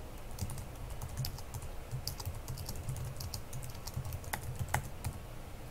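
Typing on a computer keyboard: an irregular run of keystroke clicks over a steady low hum.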